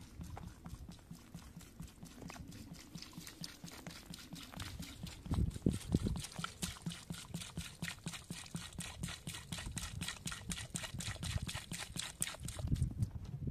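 Water pouring in a thin stream from a plastic jerrycan into a metal pan of lettuce leaves, splashing onto the leaves in a quick, even patter as a hand works through them. A few heavier low knocks come about five to six seconds in and again near the end.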